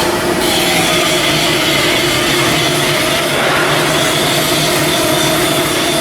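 Steady, loud machinery noise with several held whining tones that do not change.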